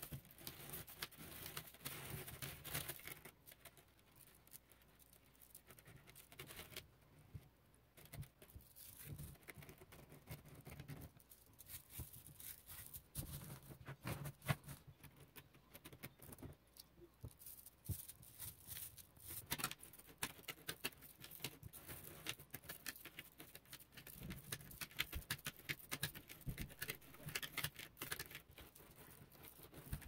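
Rapid, irregular clicking and clacking of small neodymium magnet balls snapping against one another as hands handle them, sped up and played in reverse. The clicks thin out for a few seconds a few seconds in, then grow dense again.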